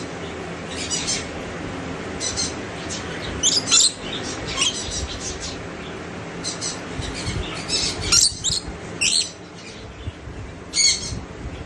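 Birds calling in repeated short, high-pitched chirps and squawks that come in clusters every second or so, loudest about four, eight and eleven seconds in.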